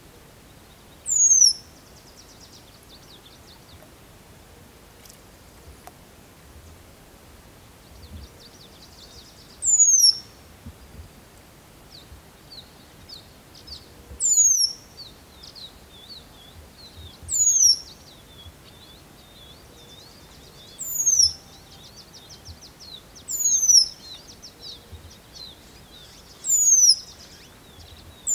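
Male red-winged blackbird giving a series of high whistles that slide down in pitch, one every few seconds, about eight in all, with faint rapid ticking between the later ones. The uploader says this whistle is used to alarm other males in his territory.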